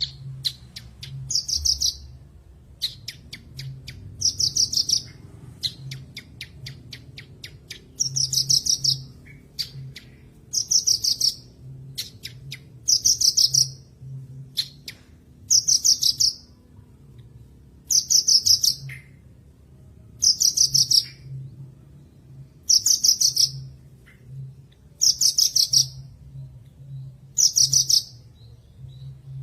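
Javan bush lark (branjangan) singing: short bursts of rapid, high trilled notes, repeated about every two to two and a half seconds, with runs of quick clicking notes between some of them.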